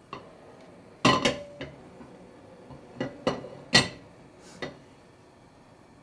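Frying pan and metal cooking utensils clanking on a gas stovetop: seven or eight sharp knocks, the loudest about a second in and just before four seconds, one ringing briefly.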